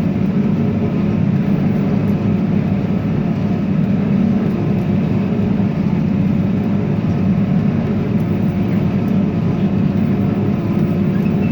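Tractor engine running steadily while pulling a hay baler through the field, heard from inside the cab as a constant low drone.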